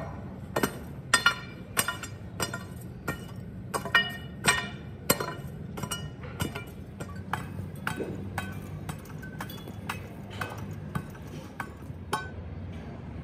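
Metal being struck repeatedly, about twice a second, each blow ringing, over a steady low machinery hum. The blows weaken after about eight seconds and stop near the end.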